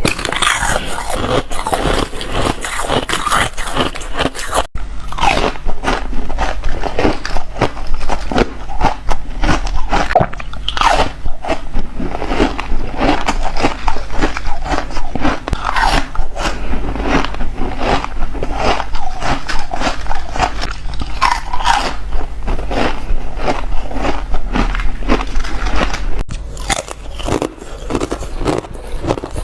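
Close-miked biting and crunching of chip ice: a continuous run of loud, irregular cracks and crackles as the pieces are bitten and shattered between the teeth.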